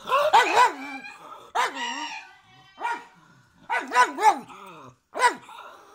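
Pug barking repeatedly, about nine barks in short groups: three quick barks, two single barks, three quick barks again, then one more. Each bark rises and falls in pitch.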